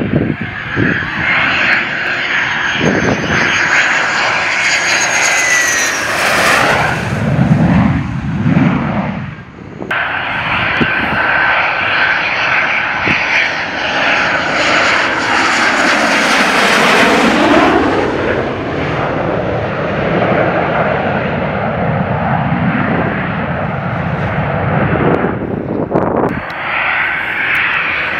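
Belgian Air Force F-16 fighter jet engine running as the jet flies its landing approach, a loud continuous jet roar with a high whine whose pitch sweeps slowly as the aircraft moves past. The sound breaks off and restarts twice, about ten seconds in and again near the end.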